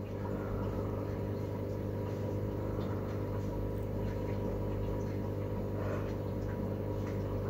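Steady hum of a running motor or appliance: a low drone with several even tones above it.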